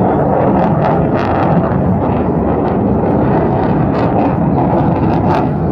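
Military jet aircraft engine noise during an air show flight display: a loud, steady rush.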